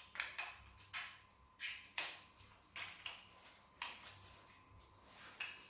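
Irregular metallic clicks and clinks of a timing chain being handled and fitted over the sprockets of a Mazda 2.2 Skyactiv-D diesel engine.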